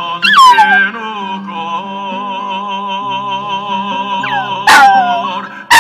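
Cairn terrier puppy howling along to a song. A loud cry just after the start falls in pitch over about half a second, and a sharp yelp comes near the end, over the music and a singer holding a long note.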